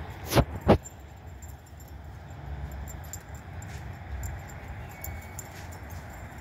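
Two sharp knocks in quick succession, about a third of a second apart, just after the start, over a low steady rumble with a few faint ticks.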